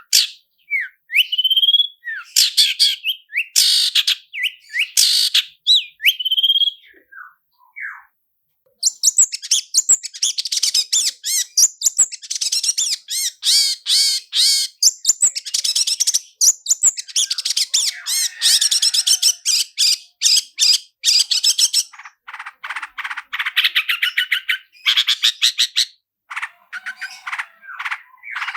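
Long-tailed shrike (cendet) singing: a few separate rising whistled notes, then, after a short pause about nine seconds in, a loud, very fast rolling chatter of rapid notes that goes on in bursts.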